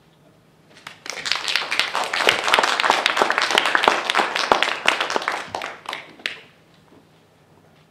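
Small audience applauding, starting about a second in, holding for about five seconds and dying away with a few last claps.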